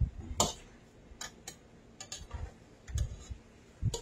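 Metal tongs clicking and scraping against the side of a stainless steel stockpot as chopped collard greens are tossed to mix in the seasoning. About eight short, irregular taps.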